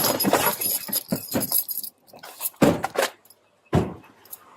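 Close jangling and clattering rustle, of metal bits moving against the microphone, for about two seconds, then two heavy thumps about a second apart.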